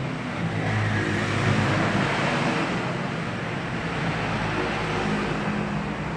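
A motor vehicle passing on the road, its engine hum and tyre noise swelling to a peak about two seconds in and then easing off.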